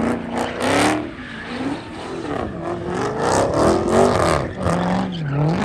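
Car doing donuts: its engine revs rise and fall several times while the rear tires screech and spin on the pavement.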